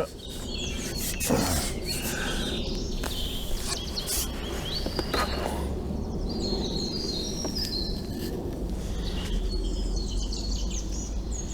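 Small birds chirping and singing in repeated short phrases, over a steady low rumble, with a few faint knocks.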